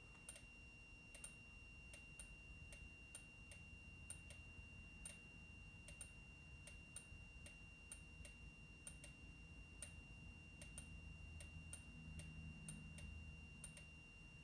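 Near silence with faint sharp ticks, one or two a second, from fire alarm strobes clicking as they flash. A faint steady high-pitched whine runs underneath.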